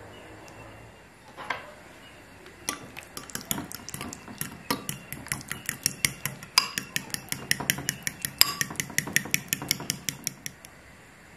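Metal spoon stirring thick yogurt in a ribbed glass bowl, clinking against the glass several times a second. A single clink comes first, then a steady run of clinks that stops shortly before the end.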